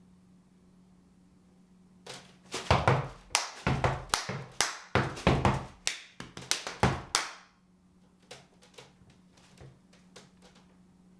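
Steppers performing a step routine: rapid, loud stomps and hand claps in a tight rhythm for about five seconds, then a few scattered, fainter taps. A faint steady hum runs underneath.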